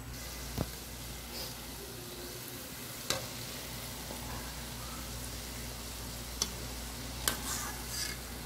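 Batter fritters frying in hot oil in an aluminium pot, a steady sizzle, broken by a few sharp clicks.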